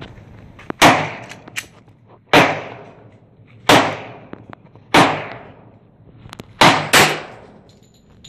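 Glock 41 .45 ACP pistol firing six shots of 230-grain powder-coated lead handloads, about one every second and a half, the last two in quick succession. Each shot trails off in a long echo, and small clicks come between the shots.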